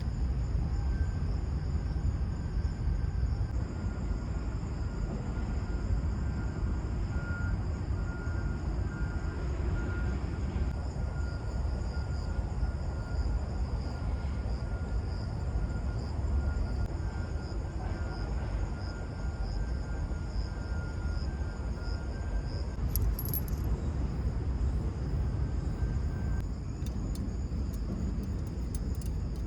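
Outdoor ambience: a steady low rumble of distant road traffic, with insects chirring in a high, continuous trill.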